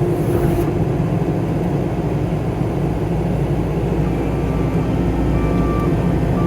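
Skid steer engine running steadily under load, with a faint high whine that comes and goes in the second half.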